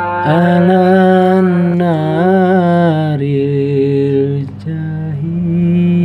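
A man singing a pujian, the Javanese devotional chant sung in the mosque before congregational prayer, in long drawn-out melodic phrases with the pitch bending within each line. A short break comes about four and a half seconds in.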